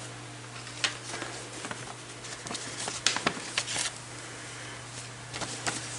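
Paper and card rustling with scattered light clicks and taps, as stickers and a business card are handled; busiest about halfway through. A steady low hum runs underneath.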